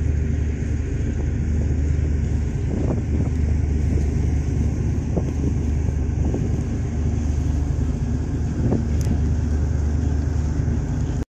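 Steady low rumble of a ferry under way, heard from its open deck, with an even hiss over it; it cuts off suddenly near the end.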